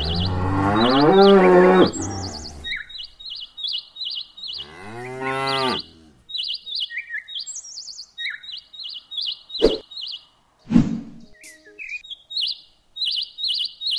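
Cow mooing twice, one long call at the start and another about five seconds in, over many short repeated bird chirps. Two sharp knocks about a second apart come about two-thirds of the way through.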